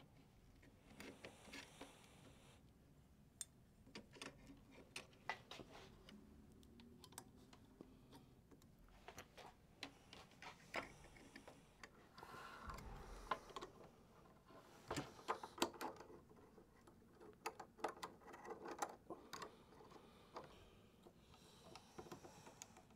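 Faint scattered clicks, taps and rubbing of hands handling the pneumatic hose connectors and spiral-wrapped air hoses on a metal embroidery hoop frame, busiest in the middle.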